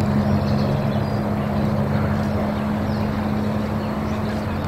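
Steady low motor hum over a wash of outdoor background noise.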